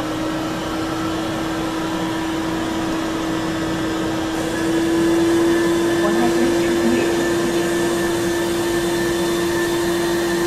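Steady mechanical whine from a robotic ice cream vending machine's suction-cup picking arm as it drops into the chest freezer and lifts out an ice cream cup. The whine grows louder about four and a half seconds in.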